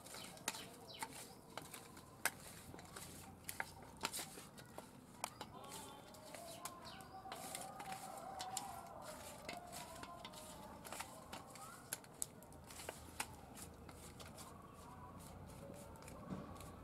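Hands rubbing small tangra fish with turmeric and salt in a steel bowl: faint, irregular clicks and wet squelches of fingers and fish against the metal. A bird calls with a wavering note in the background around the middle.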